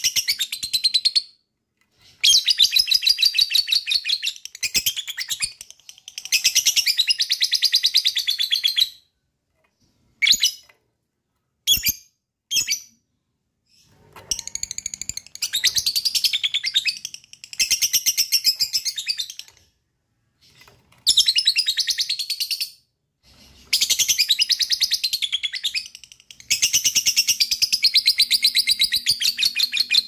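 Peach-faced lovebird in a blue colour mutation giving its long 'ngekek' chatter. It is a very rapid, high-pitched trill in runs of two to four seconds, broken by short pauses and a few single chirps about a third of the way through.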